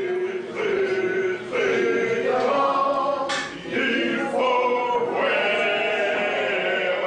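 A group of people singing a song together in chorus, a man's voice prominent, with long held notes.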